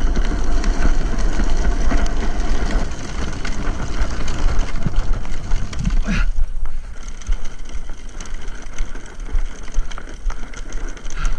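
Drift trike rolling fast over wet asphalt with wind rushing on the microphone. About six seconds in the rolling noise drops away as the trike stops, leaving lighter ticking and clicks.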